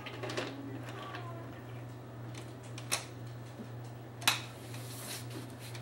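Light clicks and clatter of toy trains and wooden track pieces being handled, with two sharper knocks about three and four seconds in, over a steady low hum.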